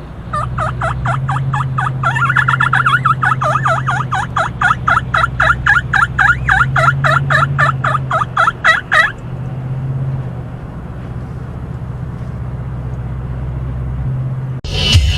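A turkey call worked in a long, fast run of turkey-like notes, several a second, stopping about nine seconds in, over the steady low hum of a car on the road. Music starts suddenly near the end.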